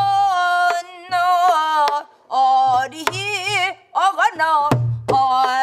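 A woman sings a phrase of Namdo minyo (southwestern Korean folk song) with wide vibrato and bending pitches, in short phrases with breaths between. A soribuk barrel drum accompanies her: sharp stick strikes and low palm thumps on the drumhead.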